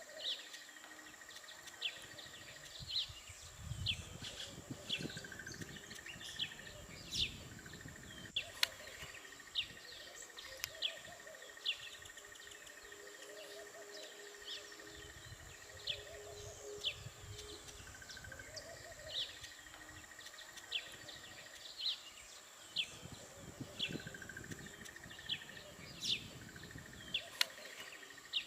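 Small birds chirping in quick, short calls, several a second and on and off throughout, over a steady high hum, with a couple of low rumbles.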